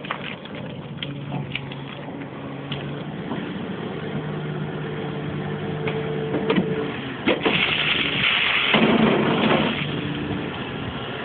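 Komatsu PC340LC hydraulic excavator working: its engine runs steadily, a few sharp knocks sound, and a louder rush of noise lasts about two seconds about two-thirds of the way through.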